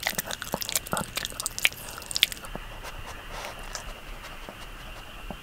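Small dog chewing and crunching a dog chew, with quick wet clicks of teeth. The chewing stops about two seconds in, once the chew is finished.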